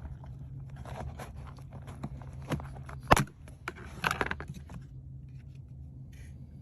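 Rubber door weather stripping being pulled off the car body's pinch-weld flange: scraping and rustling with scattered clicks, one sharp snap about three seconds in, then a burst of scraping. It goes quiet after about five seconds, leaving a steady low hum.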